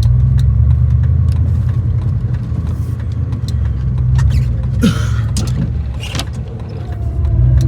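Gasoline 3/4-ton pickup's engine running, heard from inside the cab while plowing snow, its low drone swelling and easing with the load. A short squeak about five seconds in.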